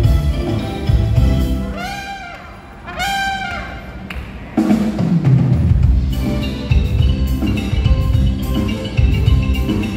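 A live band playing, with drums and bass. About two seconds in the band drops back to two long held high notes, then comes back in at full strength about halfway through.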